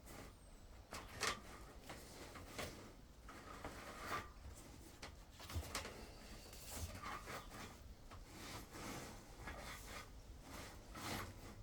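Faint, irregular rubbing and clicking of a flexible drain-cleaning shaft being drawn back through the drain pipe.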